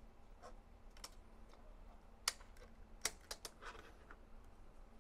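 Faint scattered clicks and light taps of plastic parts being handled: a gel blaster barrel being fitted into its plastic top rail piece. About six small clicks, the sharpest about two seconds in.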